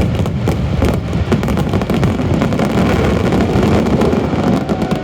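Fireworks going off in quick succession: a dense run of sharp crackles over a continuous low rumble of booms, the crackles thinning out after the first second or so.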